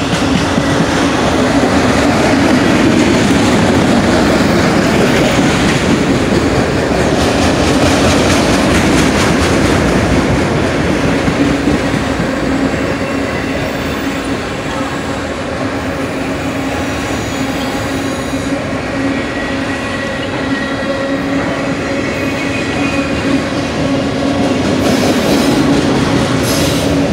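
Freight train of autorack cars rolling past a grade crossing: a continuous loud rumble and clatter of steel wheels on the rails, with a steady tone held over it.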